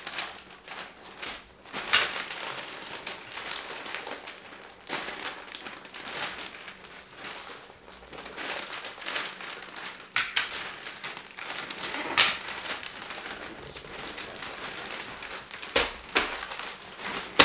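Wrapping paper rustling and crinkling as it is folded and pressed around a large cardboard box, with sharp crackles at irregular moments and a few louder ones.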